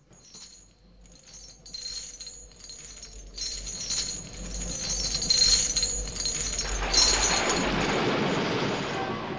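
Shimmering, tinkling chimes that build gradually in loudness, joined about seven seconds in by a swelling whoosh of noise that slowly fades.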